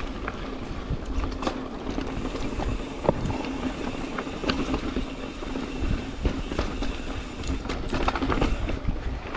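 Mountain bike riding over a rough trail: an irregular rattle and clatter of knocks from the bike, over a heavy rumble of tyres and wind on the microphone, with a faint steady buzz underneath.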